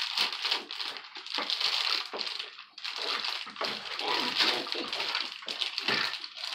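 Clear plastic bag of small toy accessories crinkling and rustling in a steady, irregular crackle as small hands pick and pull at it to get it open.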